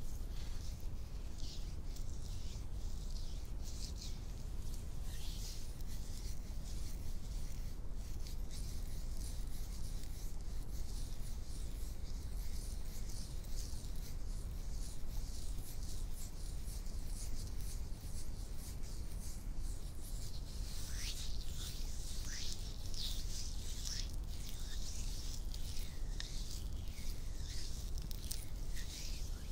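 Close-up ASMR hand sounds: palms rubbing and long manicured fingernails scratching in short, soft strokes. The strokes grow louder and come faster about twenty seconds in, over a steady low hum.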